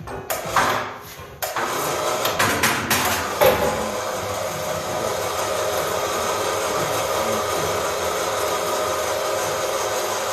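A few sharp knocks of hand-tool work in the first few seconds, then a steady machine whir that runs on.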